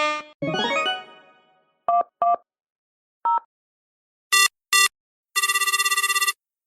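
Stock sound effects played from a phone app: a brief rising effect that dies away, then five short telephone keypad beeps in ones and twos, then a burst of trilling telephone ring.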